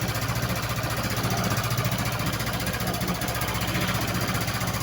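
Kymco Like 150i scooter's single-cylinder four-stroke engine running steadily with a fast, even pulse, now fed by a newly replaced fuel pump after a no-fuel-supply fault.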